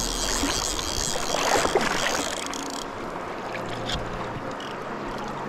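Shallow river water rushing and splashing close by, with a louder flurry of splashing about one and a half seconds in.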